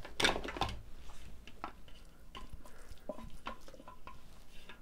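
A plastic spatula scraping thick walnut pesto out of a food processor bowl, with light knocks and clicks of the bowl and spatula and a louder knock about a quarter second in.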